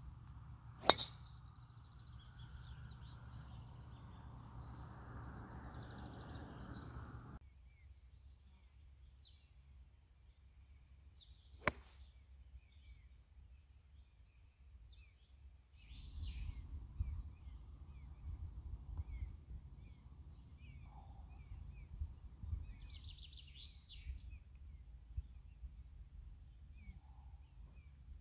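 Two crisp cracks of a golf club striking the ball: a tee shot about a second in and a second shot from the fairway near the middle. Birds chirp in the background, and there is a low outdoor rumble in the second half.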